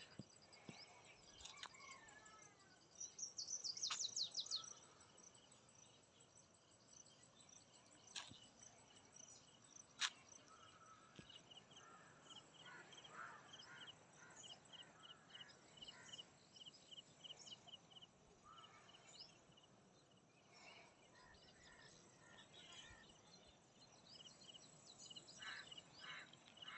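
Faint, near-silent ambience with small birds calling: a quick burst of high chirps about three seconds in, and a steady run of high pips, about three a second, through the middle. Two sharp clicks sound about eight and ten seconds in.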